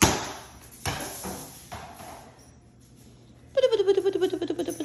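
Three knocks about a second apart, the first loudest. About three and a half seconds in, a Doberman puppy starts a long, wavering, high whine.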